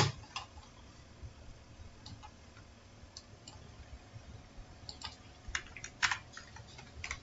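Clicks from a computer mouse and keyboard: one sharp click at the start, then scattered soft clicks that come thicker between about five and six and a half seconds in, over a faint steady hum.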